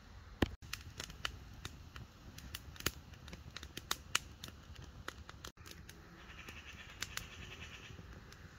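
Small stick fire crackling as the kindling catches, with irregular sharp snaps and pops.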